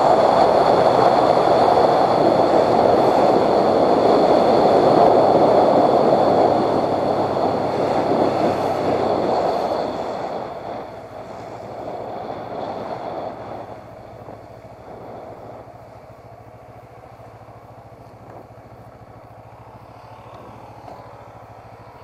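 Wind and road noise from a motorcycle ride at speed, dying away about halfway through as the bike slows down. It leaves the motorcycle engine's low, steady hum as it runs slowly toward a stop.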